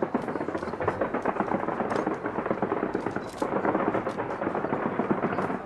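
Fireworks going off in rapid, dense succession: a continuous rumble of bangs and crackles, briefly easing about three and a half seconds in.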